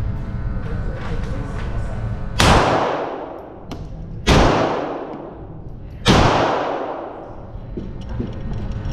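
Three gunshots, a little under two seconds apart, each followed by a long echoing decay.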